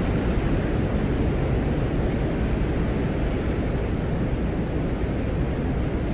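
Venera 13/14 lander microphone recording from the surface of Venus: a steady noise heard as the soft blowing of the Venusian wind, with static hiss in the background and no distinct knocks or other events.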